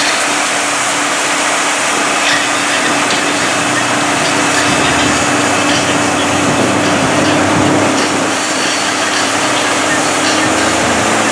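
First-gen Dodge's 5.9 Cummins straight-six diesel running steadily under load as the big tires churn slowly through deep mud.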